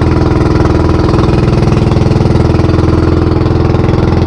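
Engine of a motorized outrigger fishing boat (banca) running steadily under way, one even engine note with no change in speed.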